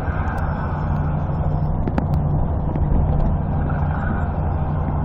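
Steady engine and road noise heard from inside a moving vehicle, with a low hum and a single brief click about two seconds in.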